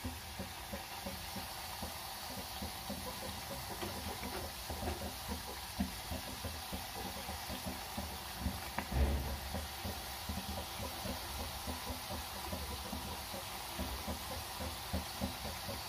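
Maize-flour nacho triangles deep-frying in medium-hot oil: a steady sizzle full of small crackles as more pieces are added one by one. A low thump about nine seconds in.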